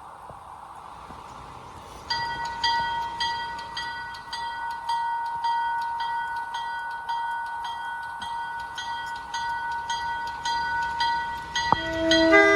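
Railroad grade-crossing bell starts about two seconds in and rings in rapid, even strokes as the crossing signals activate for an approaching train. Near the end a locomotive horn begins to sound over it.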